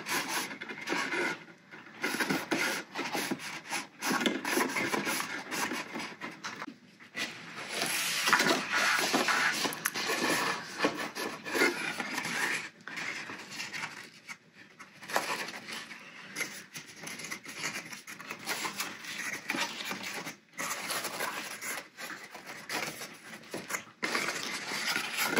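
Stiff cardstock rustling and scraping as hands fold it and fit the pieces of a paper box together, with many short crisp scrapes and taps and a few brief pauses.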